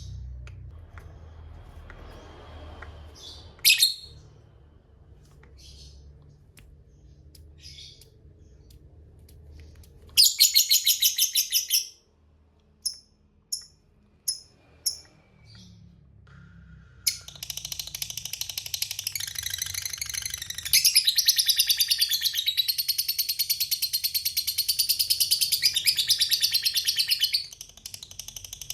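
Lovebird song. Scattered single chirps come first, then a short burst of rapid chattering about ten seconds in. From a little past halfway there is a long, unbroken, fast chattering trill, the long 'ngekek', which breaks off shortly before the end and then starts again.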